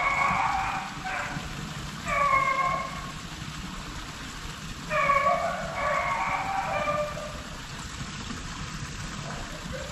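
Beagles baying in drawn-out bursts while running a rabbit on its scent trail, with the longest stretch of baying from about five to seven seconds in.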